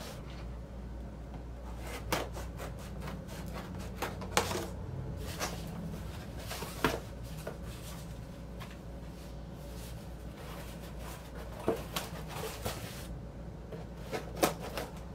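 Cardboard shipping box being handled and its tape cut with scissors: scattered short scrapes, taps and rustles, over a steady low hum.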